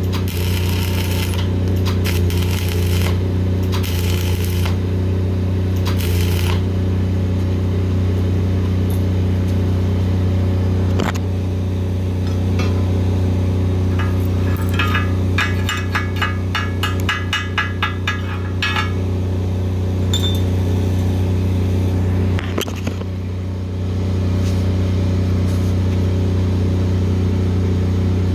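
Lincoln 305D diesel engine-driven welder running steadily. In the first six seconds there are several short runs of self-shielded flux-cored wire arc crackle (NR-305). Around the middle comes a few seconds of quick metallic clinking.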